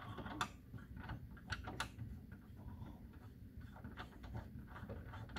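Faint scattered clicks and scrapes of a small metal screw being turned into the plastic plug of a speaker binding post on an Onkyo TX-8050 receiver, threading in so the plug can be pulled out.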